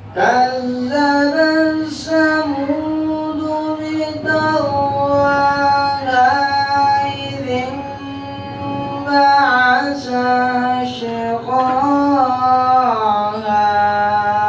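A young man chanting Quran recitation in the melodic tajweed style into a microphone, holding long, ornamented notes that waver up and down, with short breaks between phrases.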